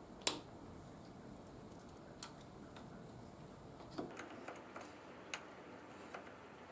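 Faint, irregular small clicks and ticks of a wrench working the bleed nipple on a motorcycle's rear brake caliper while the brake fluid is flushed. There is one sharper click just after the start, and the ticks come more often from about four seconds in.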